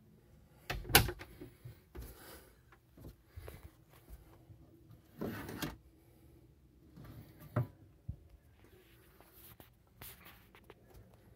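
A few knocks and clunks of a boat-cabin door or cupboard being handled, the sharpest about a second in and another near the middle-to-late part, with a short scuffing rustle in between.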